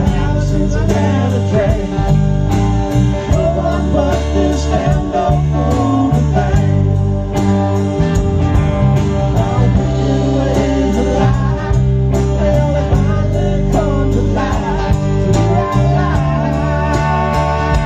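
Live country band playing amplified, with electric guitars, bass guitar and a drum kit keeping a steady beat.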